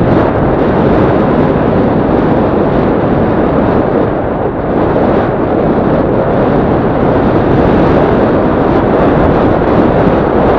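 Yamaha Crypton-X's small single-cylinder four-stroke engine running steadily on an off-road ride, mixed with rushing wind noise on the microphone: a loud, even noise with no sudden events.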